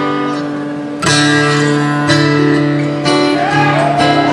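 A live band playing, led by an acoustic guitar strumming chords that ring on, restruck about once a second. Near the end, high gliding tones swoop up and down over the chords.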